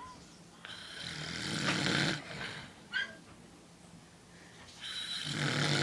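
A man snoring: two long snores about four seconds apart, each building in loudness before cutting off, with a brief high squeak between them.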